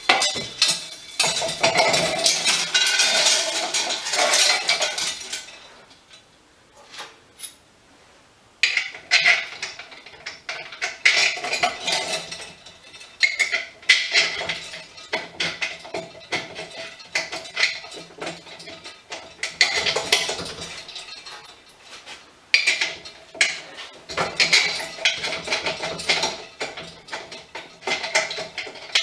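Metal parts of a hydraulic strut spring compressor clinking and rattling as it is assembled by hand, in irregular runs of sharp clicks and knocks. There is a pause of about three seconds some six seconds in.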